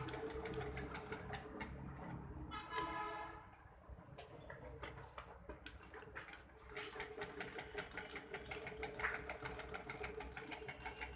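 Shan sewing machine running, a fast, even stitching rattle. It eases off for a few seconds in the middle and picks up strongly again about seven seconds in.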